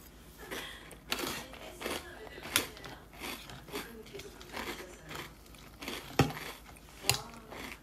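Crunchy cereal in milk being chewed close to the microphone: a run of short, crisp crunches. Two sharper knocks stand out about six and seven seconds in.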